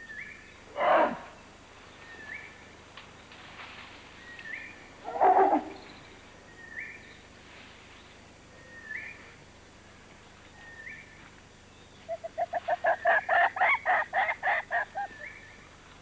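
Agitated wild eastern lowland gorillas calling: a loud harsh call about a second in and another about five seconds in. Near the end comes a rapid, evenly spaced run of about fifteen hollow pops, about five a second. A faint short chirp repeats about every two seconds throughout.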